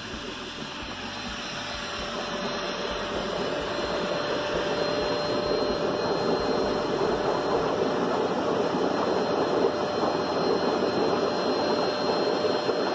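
Vacuum-cleaner motor used as a homemade air blower, running with a steady whine while it pushes air down a PVC pipe into a bucket of water. The water bubbles and churns hard. The sound grows louder over the first few seconds, then holds steady.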